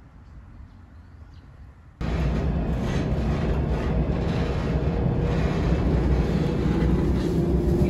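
Quiet outdoor air for about two seconds, then an abrupt cut to the inside of a moving tram: a loud, steady rumble of the wheels on the rails and the running gear, with a faint motor whine rising slightly in pitch.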